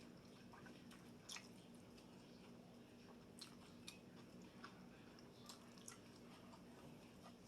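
Faint chewing of a soft taco, with a few scattered wet mouth clicks over a low steady hum.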